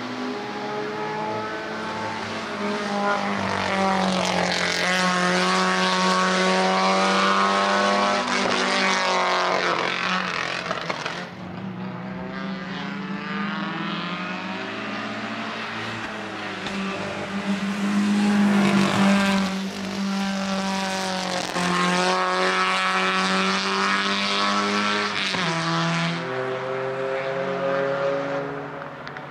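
Race-prepared Volkswagen Golf GTI engine running at high revs as the car passes by, loudest about 5 and 19 seconds in. Its pitch steps with gear changes.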